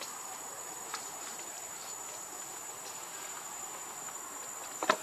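Steady high-pitched insect chorus, with a faint click about a second in and a louder sharp click near the end.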